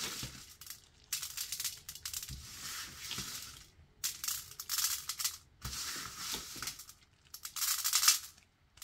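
Fake sprinkles rattling and skittering on a metal baking sheet as they are pressed on and swept up by hand, in several short bursts.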